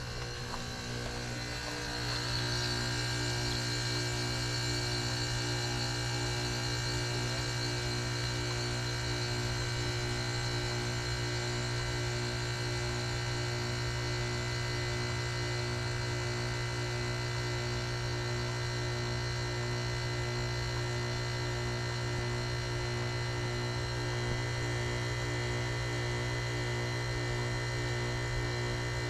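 A 2015 Carrier Comfort heat pump's outdoor unit running through its defrost cycle: a steady machine hum with several steady tones, which steps up in level about two seconds in and then holds.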